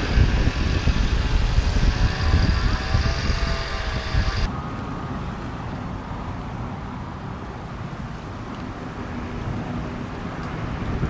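Wind rumbling on the microphone over street traffic, with a faint wavering siren in the background. About four seconds in, the sound cuts to a quieter, steady diesel engine hum from an approaching fire engine, rising slightly near the end.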